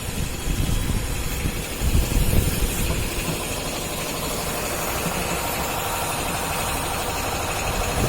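A machine motor running with a low rumble, surging unevenly for the first few seconds and then running steadily.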